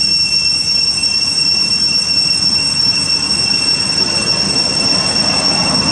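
Cicadas droning, one steady high-pitched unbroken tone over a background hiss.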